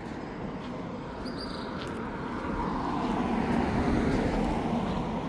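A motor vehicle driving past, its noise growing louder about two and a half seconds in, peaking around four seconds and then fading.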